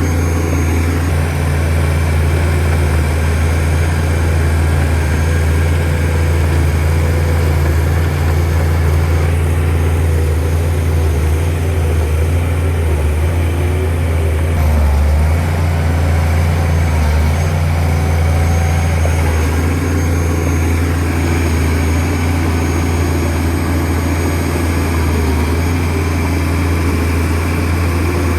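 Diesel engine of a Shantui DH17C2 bulldozer running steadily with a deep, even drone while the machine pushes dirt.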